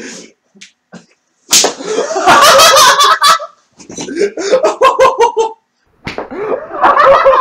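A single whip lash across a man's back, one sharp crack about one and a half seconds in, followed by loud yelling and laughter.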